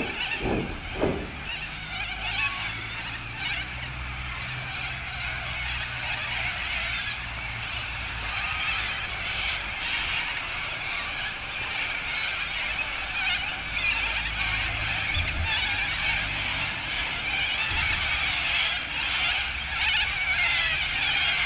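Insects buzzing in a steady, dense high-pitched drone.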